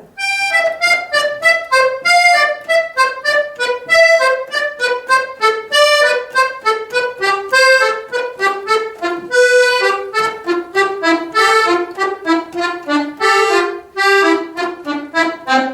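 Accordion playing a staccato finger exercise: a quick run of short, detached notes, several a second, climbing and then coming back down the keyboard.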